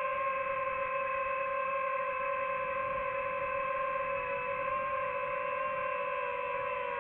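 DJI FPV quadcopter's motors and propellers whining at a steady pitch in flight, as picked up by the drone's own microphone.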